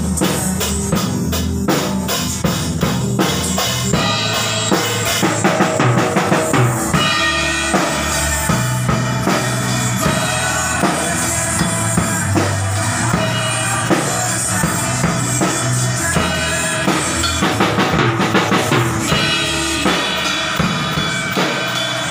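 Drum kit played in a steady beat, with bass drum, snare and cymbal hits, over a song whose other pitched instruments and bass sound along with it.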